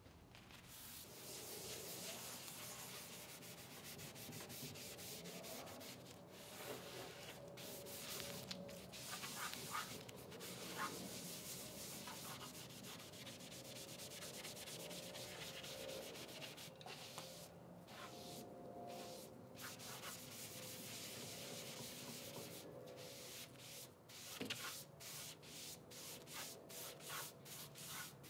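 Faint, continuous rubbing of a cloth rag over the wood veneer side of a cabinet as stain is worked in, turning into short separate wiping strokes near the end.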